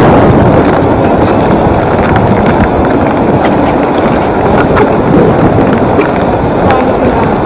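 Loud steady rushing noise from the open, flowing Zanskar river beside the ice shelf, mixed with wind buffeting the microphone, with a few sharp crunches from footsteps on the ice.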